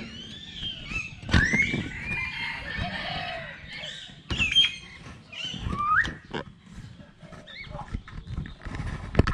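Chickens clucking and calling in short gliding cries, with a few sharp knocks, the loudest about a second in, about four seconds in and near the end.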